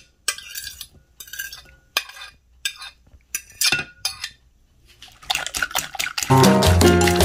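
Metal fork scraping and clinking against a plate and the rim of a glass mixing bowl in a run of short strokes as diced vegetables are pushed into the eggs. Music comes in about five seconds in and is loud near the end.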